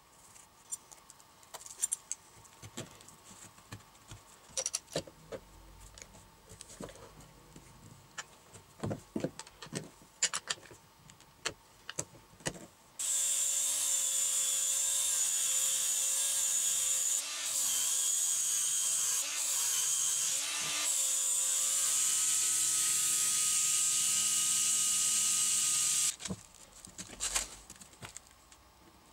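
Battery angle grinder with a sanding disc running steadily with a high whine for about thirteen seconds, starting and stopping abruptly, as it sands a stack of wooden discs on a metal rod. Before it, light clicks and knocks of wooden discs being handled and slid onto the rod; after it, quieter handling sounds.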